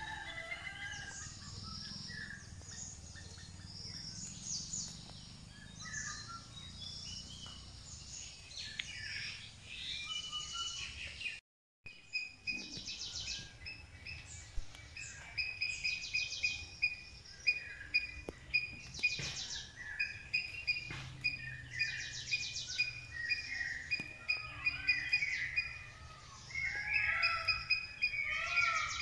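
Several birds calling and chirping over a low outdoor background hum. The sound drops out briefly about a third of the way through; after that a short call repeats many times at a steady pitch among other chirps.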